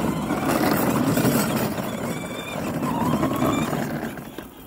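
Kid Trax 12-volt battery-powered kid's zero-turn ride-on mower driving on wet asphalt: its plastic wheels rumble and its electric drive motors give a faint whine. The sound drops off shortly before the end.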